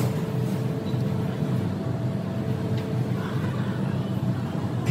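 Steady low rumble of running machinery, with a faint steady hum that cuts off about a third of the way in and a couple of light clicks.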